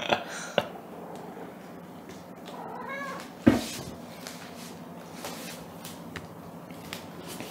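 Domestic cat giving one short attention-seeking meow about three seconds in, followed at once by a single thud as it jumps down from a chair and lands on the wooden floor.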